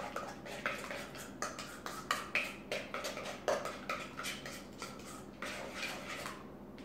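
A spoon stirring barbecue sauce in a metal mixing bowl, clinking and scraping against the bowl's sides in quick, irregular strokes, several a second, stopping shortly before the end.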